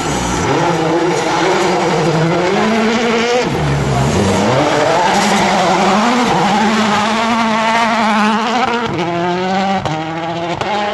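Rally car engine at full throttle, revving up and down through the gears, lifting off about three and a half seconds in and then pulling hard again.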